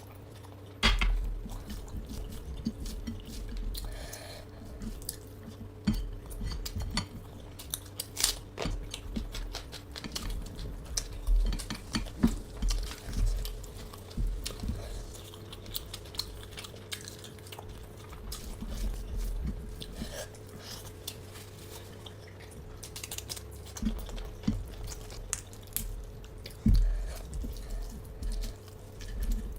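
A person eating fish and vegetables close to the microphone: irregular chewing and crunching, with clinks of a plate and cutlery, over a faint steady hum.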